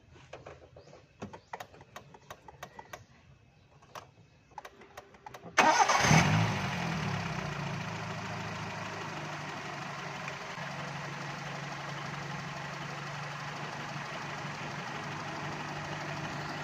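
A few light clicks, then about five and a half seconds in the Toyota Corolla's four-cylinder engine fires up with a short flare of revs that falls away to a steady idle. It is the first start after an ignition coil replacement, and the engine catching and idling shows the new coil is working.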